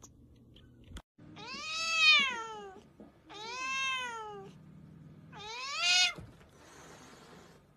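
Domestic cat meowing three times, drawn-out calls that rise and then fall in pitch; the first is the loudest.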